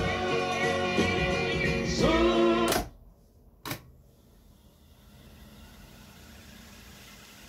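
A song with singing, played back on an Akai GX-210D reel-to-reel tape deck, cuts off abruptly with a click before the three-second mark. About a second later a second click comes from the deck's control lever, and then the reels spin in fast wind with a faint steady whir.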